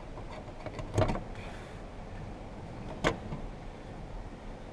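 Two sharp clacks about two seconds apart, from parts knocking as the fuel pump's high-pressure fuel line connector is worked at by hand to pull it off.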